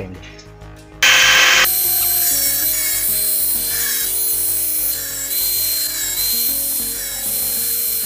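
Electric angle grinder with a cutting disc cutting through the steel wires of a table-fan guard. It cuts in about a second in with a short loud burst of noise, then runs steadily with a high whine. Background music plays underneath.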